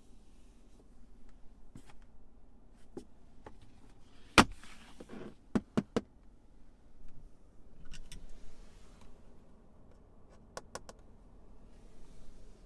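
Scattered clicks and knocks: one sharp knock about four seconds in, three quick clicks a second later, and two more clicks near the end.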